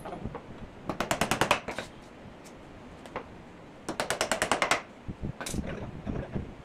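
Hammer tapping quickly on a wooden chair frame: two bursts of about eight rapid taps, the first about a second in and the second about four seconds in, with a few single knocks between them.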